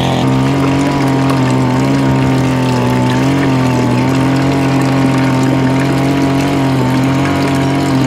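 Loud, steady engine drone, a low hum that holds its pitch with a slight waver, over water trickling into a garden pond.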